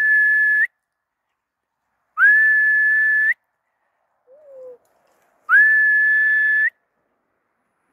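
A person whistling three times to call a flock of sheep along: each whistle is one steady high note about a second long that slides up into pitch and flicks up at the end, with a pause of a second or two between them.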